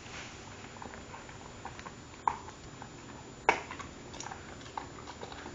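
A dog making scattered light clicks and ticks in a small room, with two sharper clicks about two and a quarter and three and a half seconds in, the second the loudest.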